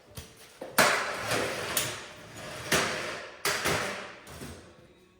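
A series of sharp knocks, four loud ones roughly a second apart, each trailing off briefly.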